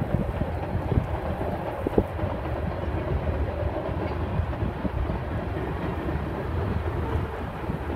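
Freight train cars rolling past, a steady sound of steel wheels on the rails with a couple of sharp clicks about one and two seconds in.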